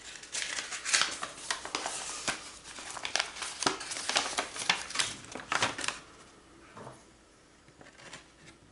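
Crinkling and rustling of something being handled, with many small crackles, stopping about six seconds in.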